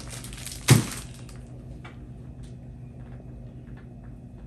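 A single sharp knock or clack a little under a second in, then faint scattered small clicks over a low steady room hum.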